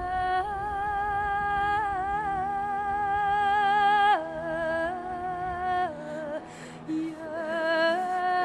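Soundtrack music: a high wordless voice hums a slow melody in long held notes with vibrato over a faint low drone. The held note drops twice, about four and six seconds in, then rises again near the end.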